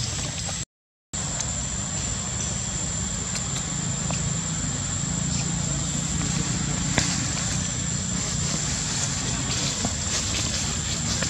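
Steady outdoor background noise: a low rumble with a constant high-pitched whine over it and a few faint clicks. The sound cuts out completely for a moment about a second in.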